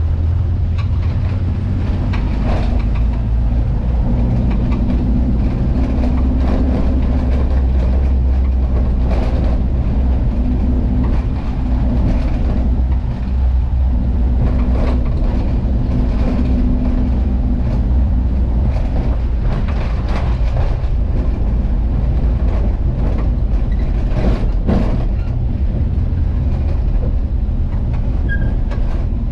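Volkswagen Kombi van's engine running steadily on the move, a low drone with scattered knocks and rattles from the road.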